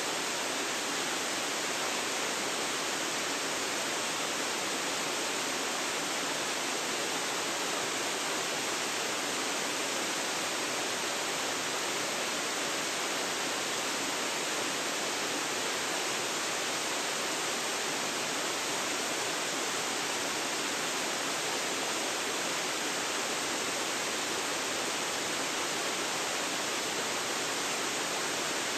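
Waterfall pouring steadily, an even, unchanging rush of falling water, picked up by a phone's built-in microphone.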